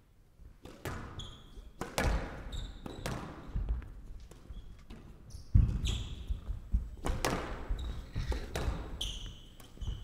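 A squash rally: the ball cracks sharply off rackets and court walls at irregular intervals, the loudest hit coming about halfway through. Short high shoe squeaks on the court floor fall between the hits.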